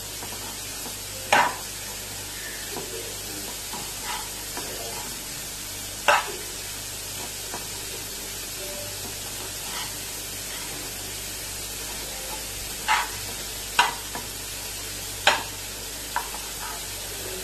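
Chopped vegetables sizzling in ghee and oil in a pan as they are stirred and sautéed until soft. A steady sizzle runs throughout, with a few sharp knocks and scrapes of the metal slotted spoon against the pan now and then.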